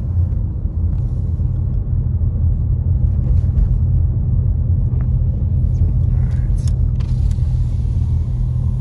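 Car driving, heard from inside the cabin: a steady low rumble of engine and road noise with a constant low hum.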